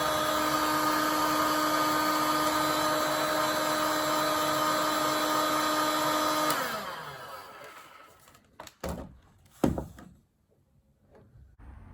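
Heat gun blowing steadily while shrinking heat-shrink tubing over a cable joint, then switched off about six and a half seconds in, its fan winding down with a falling pitch. A few sharp knocks follow, the loudest about a second after it stops.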